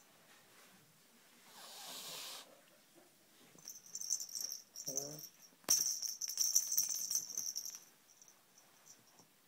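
Siamese kitten hissing once, a breathy burst about two seconds in, possessive over its toy snake. From about four seconds in, a jingling rattle as the toy is batted and shaken, with a short low cry from the kitten around five seconds.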